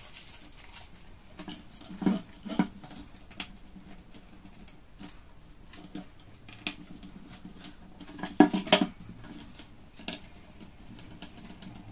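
Small screws being driven with a small screwdriver and the ABS-and-metal body of an airsoft shotgun replica being handled during assembly: scattered light clicks and scrapes, with a few louder plastic knocks about two seconds in and a louder cluster of knocks around eight seconds in.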